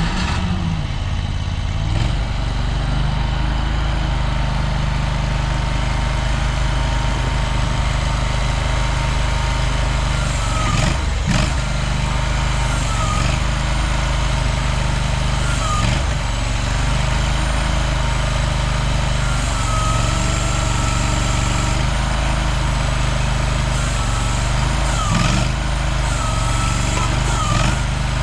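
CFG Industrial XZ20R mini excavator's engine running at a steady idle, with short whining tones that rise and fall now and then.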